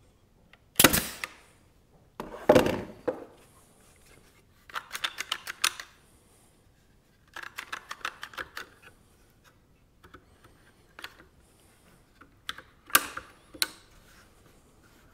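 A pneumatic brad nailer fires twice, each shot a sharp bang with a short tail. Then a one-handed bar clamp is ratcheted tight in two quick runs of clicks, with a few single sharper clicks near the end.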